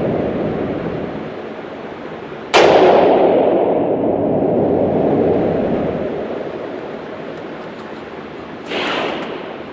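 Two gunshots about six seconds apart, the first much louder. Each is a sharp crack followed by a long echoing decay.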